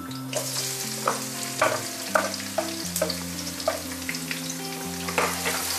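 Sliced onions hitting hot oil in a wok and sizzling steadily, with a wooden spoon knocking and scraping about twice a second as it pushes the onions in and stirs them.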